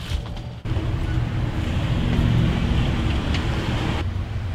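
Steady wind noise buffeting the microphone outdoors, a loud rumbling hiss mixed with street traffic, starting abruptly less than a second in.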